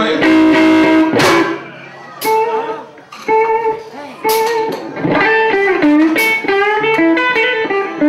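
Live blues band playing: an electric guitar takes lead phrases with bent notes over bass guitar and drums, with a few sharp drum or cymbal hits.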